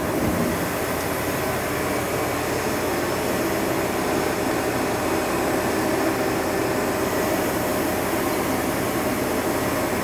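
Steady machine hum and whir of a powered-up Hardinge Quest 8/51 CNC turning center, not cutting.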